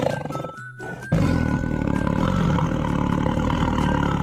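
Tiger roar sound effect: two long, rumbling roars, the first ending just after the start and the second beginning about a second in.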